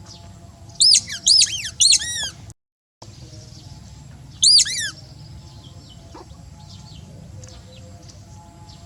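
High-pitched animal chirps: a quick run of four or five short arched calls about a second in, and two more about four and a half seconds in, over a steady low hum. The sound cuts out for about half a second between them.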